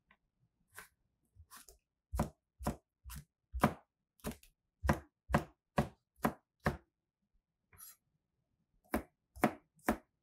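Chef's knife chopping vegetables on a cutting board, slicing green chili peppers and then garlic. The knife strikes come in a steady run of about two a second, then a short pause, then a few more chops near the end.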